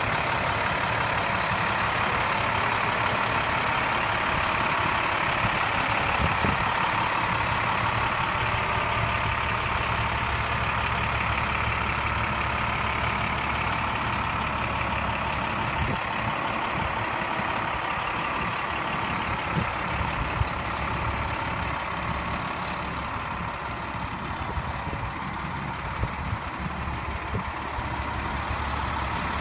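The DT466 inline-six diesel of a 2007 International 4400 dump truck idling steadily.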